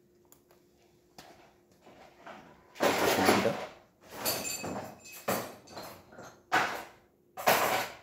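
Gaggia Cadorna Plus espresso machine, switched to its steam function, giving a faint steady hum and then a series of about five irregular hissing bursts as it heats and purges for steam. The first burst, about three seconds in, is the longest and loudest.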